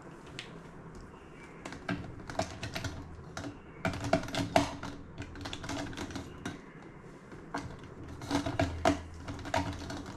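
Typing on a computer keyboard: two flurries of quick key clicks, the first starting about two seconds in and the second about seven and a half seconds in.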